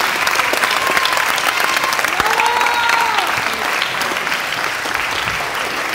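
Audience clapping in a large hall: a dense, steady patter of many hands. A couple of rising-and-falling voice calls cheer over it in the first half.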